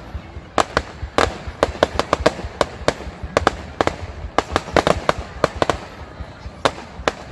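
Fireworks display: a rapid, irregular string of sharp bangs and cracks, several a second.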